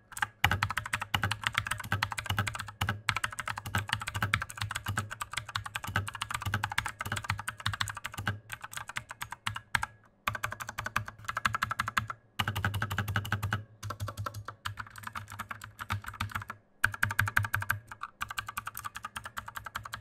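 Fast typing on a Redragon Kumara K552 mechanical keyboard, its clicky switches giving a loud, audible click with each keystroke. The typing comes in runs broken by a few short pauses.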